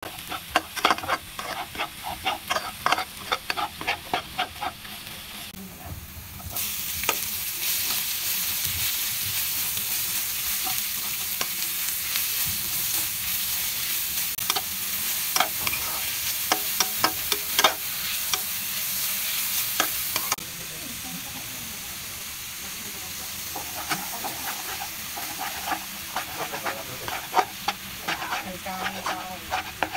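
Spatula scraping and tapping against a wok as garlic and onions fry in oil. A louder, steady sizzle sets in about six seconds in and drops away suddenly at about twenty seconds, after which the quick scraping clicks return.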